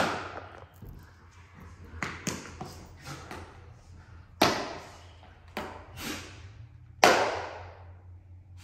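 A series of about seven sharp knocks and taps at irregular intervals, each with an echoing tail; the loudest come at the very start, about four and a half seconds in, and about seven seconds in.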